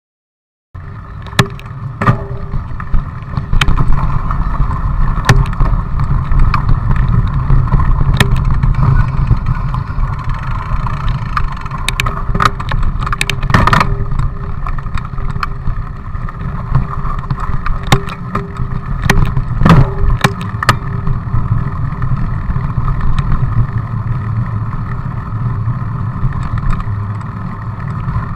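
Riding noise from a mountain bike rolling along a rough village road: wind rumbling over the microphone, tyre hum, and scattered sharp clicks and rattles from bumps and the bike. It starts suddenly about a second in and keeps up steadily.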